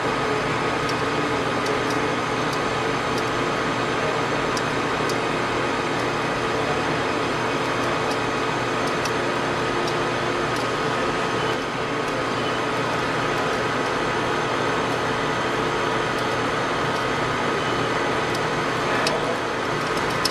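Metal lathe running steadily, its motor and gear train giving a constant whine, while a center drill in the tailstock chuck cuts into the center of the spinning billet's end face. There are a few faint ticks over the hum.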